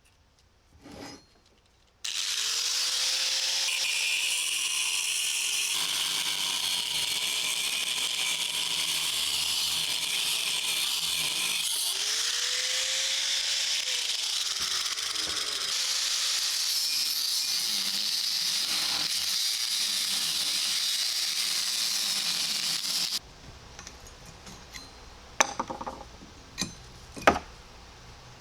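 A handheld power tool working on the steel of a railroad track section, a loud steady high-pitched grinding hiss that starts abruptly about two seconds in and cuts off suddenly near the end. A few sharp metallic clinks follow.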